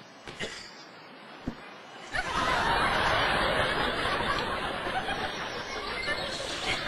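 Audience laughter, breaking out about two seconds in after a few quiet seconds with some faint clicks, then carrying on loud and steady.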